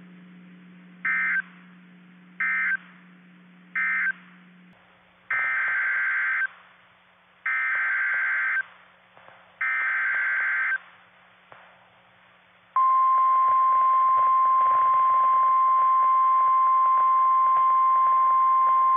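Emergency Alert System data bursts on NOAA Weather Radio. First come three short warbling bursts, the end-of-message code closing the previous warning. Then come three longer warbling bursts, the SAME header of a new warning, and about 13 seconds in the steady 1050 Hz weather-radio alert tone starts and holds.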